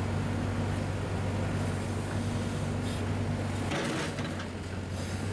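Steady low engine hum, like a vehicle engine idling, with a couple of short noises about three and four seconds in.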